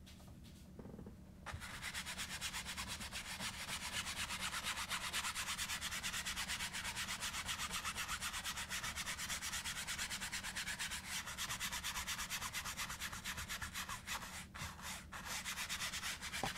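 A 2-inch paint brush scrubbing back and forth over an oiled canvas in rapid, even strokes, blending light paint into the dark. The brushing starts about a second and a half in and stops briefly twice near the end.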